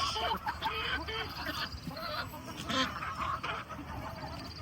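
Farmyard poultry calling: many short, overlapping calls from a flock, with a fast run of high chirps in the middle and again near the end.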